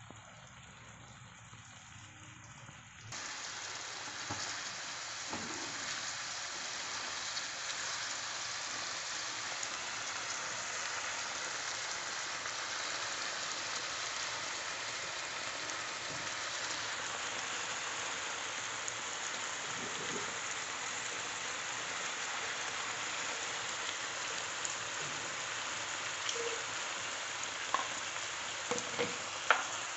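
Spiced curry sauce with a piece of tuna roe bubbling and sizzling vigorously in a pan, a steady rain-like patter that starts abruptly a few seconds in. A few sharp clicks come near the end.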